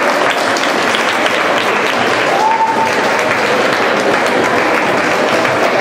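Audience applauding steadily at the end of a ballroom dance heat, once the tango music has stopped.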